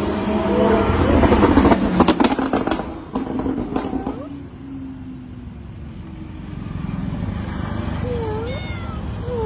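Stray cat meowing with short arching calls, once or twice in the first second and twice near the end, begging to be fed. A quick run of sharp knocks comes about two to three seconds in, over a steady low hum.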